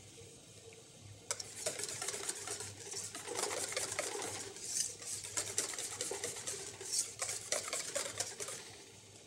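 Wire whisk beating hollandaise sauce in a stainless steel bowl to work in the seasoning: rapid clicking and scraping of the whisk against the bowl, starting about a second in and stopping shortly before the end.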